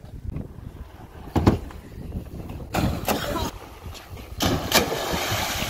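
A few knocks and rattles, then a loud splash near the end as a rider and his BMX bike smack into the lake water, with a rush of spray afterwards.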